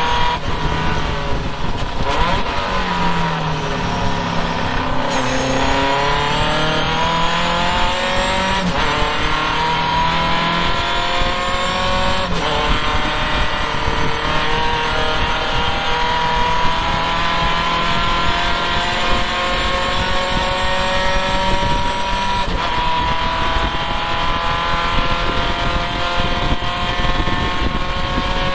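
Triumph vintage race car's engine at racing revs, heard from the open cockpit with wind rushing past: the engine note drops for a corner over the first few seconds, then climbs again, with breaks around twelve and twenty-two seconds in as the car pulls hard down the straight.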